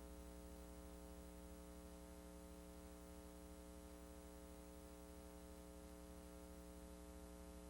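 Faint, steady electrical mains hum with a stack of higher overtones and a light hiss, on an otherwise silent tape-transfer soundtrack.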